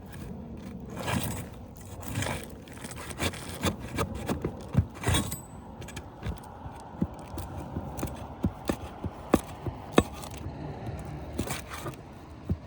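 Scraping and sharp clicks and knocks of tools working asphalt roof shingles: sealed shingles being pried loose and nails worked out. The shingles are brittle and crack rather than bend.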